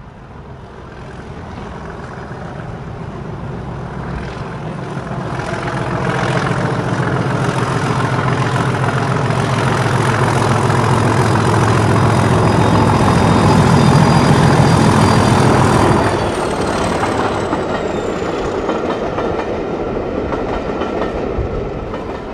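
Diesel locomotive running with wheels clattering over rail joints, growing louder to a peak about fourteen seconds in, then easing off and fading near the end.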